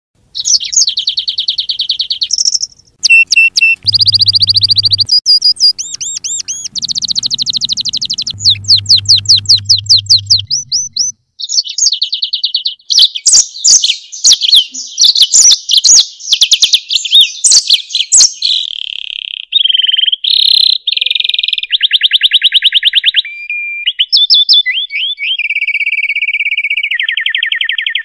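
Songbirds singing one after another in a combined masteran mix: fast trills and rapidly repeated notes, changing every second or two, with upslurred whistles and sharp clicking notes in the middle. A low hum sits under two stretches of the first ten seconds.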